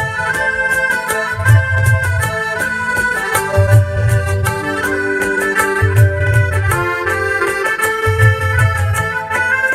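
Live Bollywood band playing an instrumental interlude: accordion chords held over keyboard, with a low bass-and-drum figure repeating about every two seconds and light percussion ticks.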